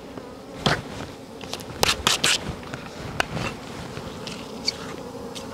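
Wild bees buzzing steadily around their exposed comb in a dug-out ground nest, with a few sharp clicks and rustles near the start and middle.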